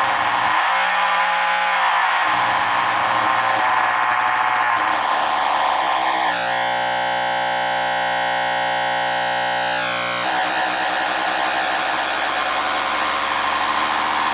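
Heathkit EA-1 amplifier oscillating: a loud, distorted, shifting howl from its speaker that changes as its treble and volume knobs are turned. For about four seconds in the middle it locks into a steady buzzing tone, then breaks up again. It is the unwanted oscillation of a 1-watt phono amp being converted for guitar use.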